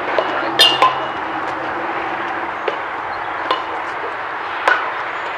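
A few sharp slaps of foam-padded practice swords striking, the loudest about half a second in, over a steady background hiss.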